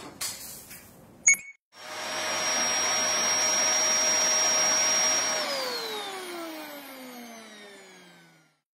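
A sharp knock as a bowl tips off a table, then a vacuum cleaner motor starts and runs steadily with a high whine. It then switches off and winds down, the whine falling in pitch as it fades out.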